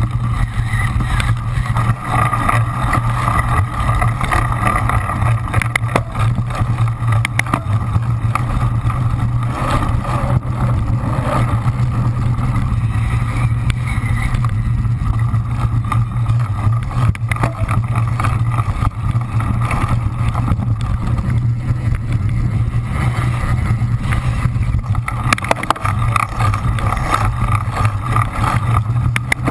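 Cyclocross bike ridden fast over rough dirt and sand: a steady rumble of wind on the microphone and tyres on the ground, with many small knocks and rattles from the bike's jolts.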